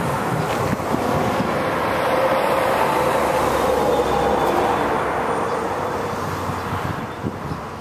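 A passing vehicle's rumble, swelling to a peak a few seconds in and fading toward the end.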